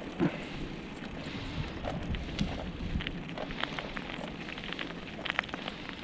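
Moving bicycle ride: wind on the microphone and rolling noise over pavement, with scattered light clicks and rattles. A short, louder falling sound comes about a quarter-second in.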